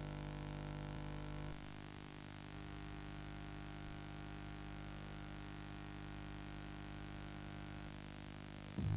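Steady hum and hiss of the recording's background noise, with no music or speech, dropping slightly in level about a second and a half in. Music starts just before the end.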